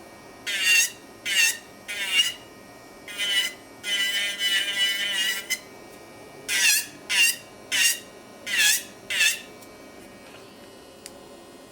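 Pelcas all-in-one electric nail drill (e-file) bit squealing against builder gel on a nail as it is pressed on: about a dozen short squeaks that drop in pitch, with one longer squeal about four seconds in, then quieter after the last stroke. The small 20,000 RPM file struggles on builder gel and needs hard pressure.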